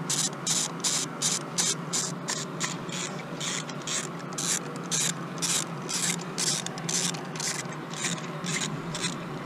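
Socket ratchet on an extension clicking in short, regular strokes, about three a second, as it is swung back and forth to unscrew a spark plug.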